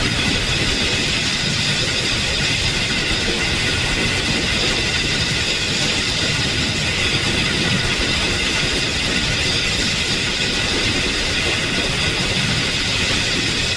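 Digitally processed, distorted sound effect: a loud, steady, dense wash of noise with no clear beat or pitch, unchanging throughout.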